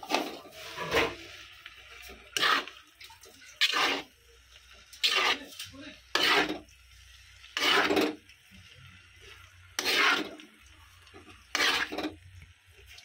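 Metal spatula scraping and tossing noodles in a black wok, about nine strokes, roughly one every second and a half.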